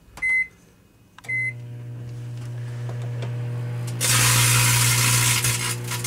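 Microwave oven keypad beeping twice, then the oven starting with a steady hum. About four seconds in, a loud crackling hiss from the chip bag shrinking inside takes over for about two seconds.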